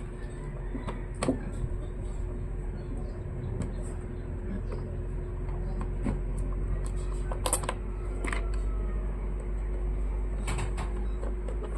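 Scattered small clicks and taps of hand tools and plastic parts during laptop disassembly, a few sharp ones standing out, over a steady electrical hum.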